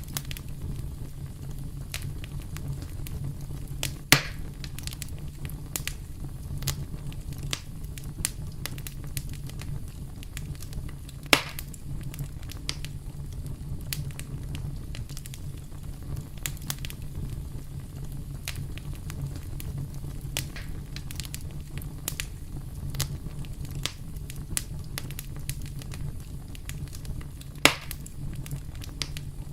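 Campfire burning, wood crackling with scattered small clicks and three sharper, louder pops, over a steady low rumble.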